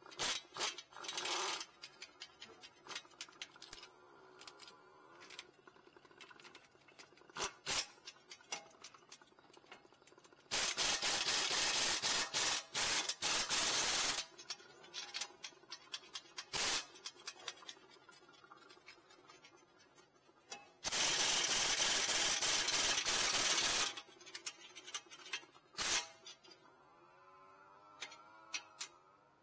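Impact wrench running in two bursts of about three to four seconds each, some ten seconds apart, as it runs the two brake caliper bracket bolts down tight with a 19 mm socket. Light clicks and knocks of tools and parts being handled come between the bursts.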